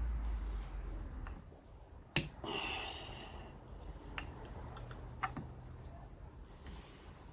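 Sharp clicks, a brief scrape and light ticks as parts of a vintage electric fan are handled and taken apart by hand. The loudest is a single sharp click about two seconds in.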